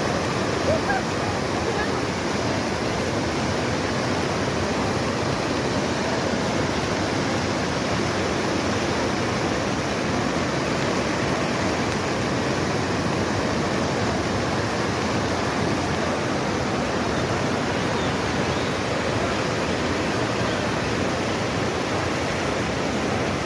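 Floodwater of the swollen Swat River rushing past in a steady, unbroken wash of noise.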